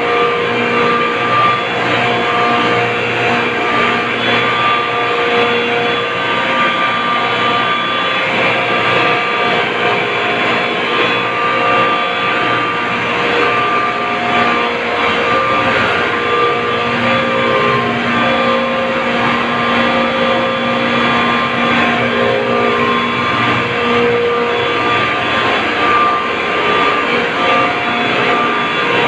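Ice plant refrigeration machinery running steadily: reciprocating refrigeration compressors together with electric pump motors, giving a loud, unbroken mechanical drone with several steady whines in it.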